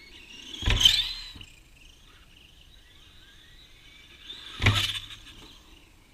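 Battery-powered RC car passing close by twice, about four seconds apart: each pass is a high motor whine that swells, bends in pitch and fades, with a brief low thump at the loudest moment.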